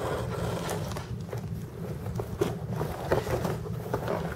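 A hand sliding on and handling a corrugated cardboard pizza box, with scattered small taps and scuffs, over a steady low hum.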